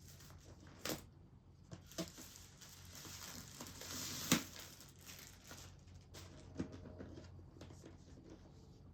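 Paper and cardboard packaging of a laptop box being handled and pulled open by hand: rustling and crinkling with a few sharp snaps, the loudest coming about four seconds in at the end of a swelling rustle.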